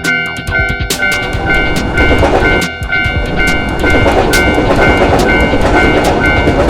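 Japanese railway level-crossing alarm sounding its repeating electronic bell. From about a second in, a train passes through the crossing, its wheels clattering over the rails.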